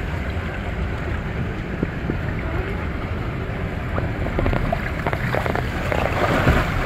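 Wind rumbling on the microphone throughout, then water splashing for about two seconds near the end as a child lunges forward through shallow pool water.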